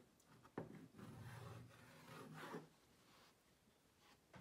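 Chalk rubbing and scraping faintly on a blackboard, with a couple of sharp taps in the first second.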